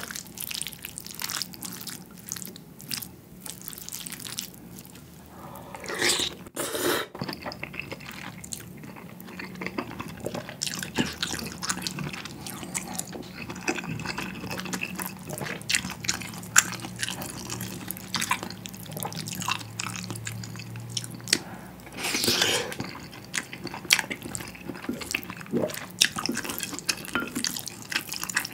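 A plastic spoon mixing rice into budae-jjigae stew with butter in a metal bowl: wet, sticky squelching with many short clicks of the spoon against the bowl.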